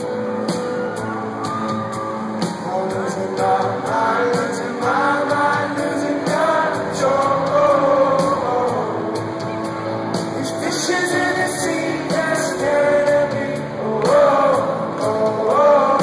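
Live rock band playing: a male lead singer over electric guitars, bass and drums with a steady beat, heard from within the audience of a concert hall.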